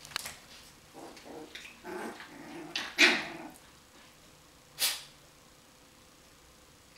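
Coton de Tulear dogs growling and barking in a whelping pen: low growls in the first couple of seconds, a loud bark about three seconds in, and one short sharp yelp near five seconds.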